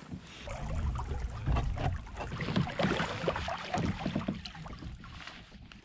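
Fishing kayak on calm water: a low wind rumble on the microphone, then a run of small irregular clicks and knocks from rod, reel and gear being handled while a lure is cast and retrieved.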